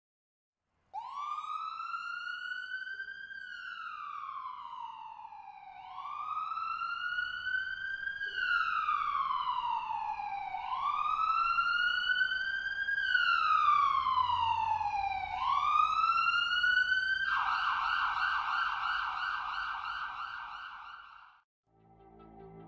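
Electronic police siren in a slow wail: four times, about every five seconds, it rises quickly and then falls slowly. About seventeen seconds in it switches to a fast yelp for a few seconds, then cuts off.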